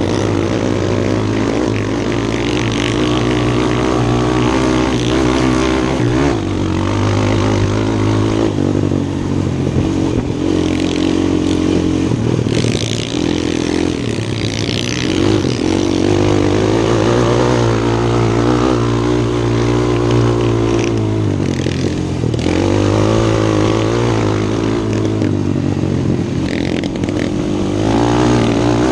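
Crossfire 250 quad bike's engine running under way on a dirt track, the engine note rising and falling with the throttle and dipping briefly a few times, with a steady hiss of wind and track noise over it.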